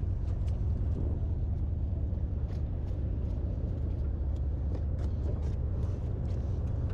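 Steady low rumble of a sportfishing boat's engine running, with scattered light clicks from a large lever-drag reel being cranked against a fish.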